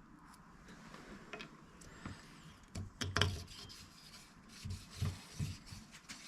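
Emery cloth rubbing inside a newly turned motorcycle small-end bush to lap out a slight tight spot for the gudgeon pin, with light scrapes and clicks of the metal parts being handled.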